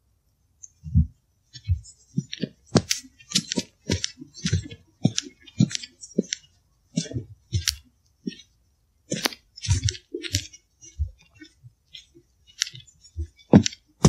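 Footsteps crunching through dry leaf litter and twigs on a forest floor: a step about every half second, each a dull thud with a sharp crackle, starting about a second in.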